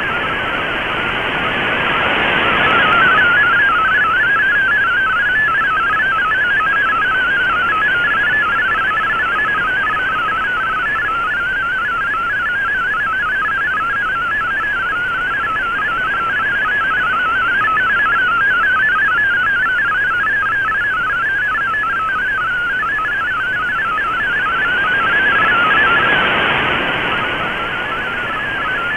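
MFSK32 digital text signal received on shortwave AM: a rapid warble of tones hopping within a narrow mid-pitch band, over steady static hiss. The hiss swells about two seconds in and again near the end as the signal fades.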